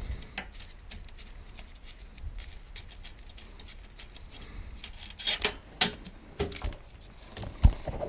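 Scattered small clicks, scrapes and rustles of gloved hands working the wiring harness and control module loose from the back of an ECM blower motor, busier in the second half, with one sharp knock near the end.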